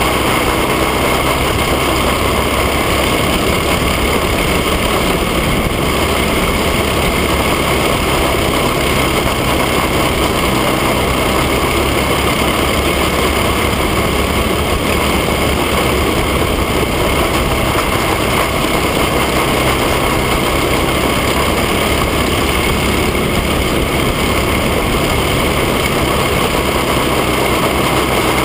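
Ninja racing kart's engine running hard and steadily at racing speed, heard from the onboard camera inside the kart's cage, with no pauses or big changes in pitch.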